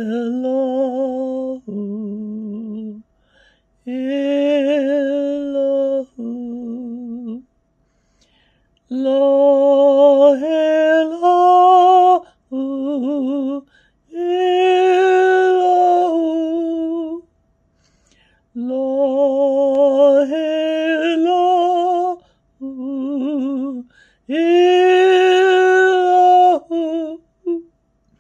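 A man's solo unaccompanied voice singing a slow, prayer-like chant. Long held notes with vibrato come in short phrases separated by brief pauses, several phrases stepping upward in pitch.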